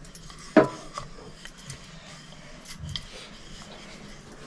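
Wooden rolling pin rolled lightly over maida dough on a steel plate: soft rubbing and rustling, with one sharp knock about half a second in and a few fainter ticks after.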